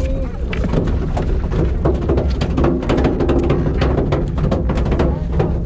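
Steady low rumble of the boat and wind on the microphone, with many short knocks and clicks close by as the angler handles and cranks a conventional tuna reel.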